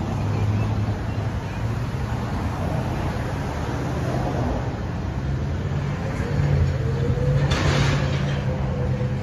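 City street traffic with a steady low rumble, mixed with wind noise on the microphone. A faint steady tone comes in about six seconds in, and a brief rushing swell follows around seven and a half seconds.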